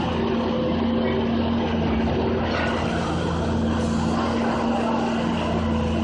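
New Holland skid steer's diesel engine running with a steady hum.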